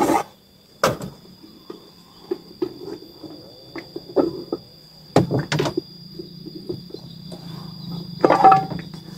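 Irregular knocks and taps over the steady high drone of insects; a low hum comes in about five seconds in.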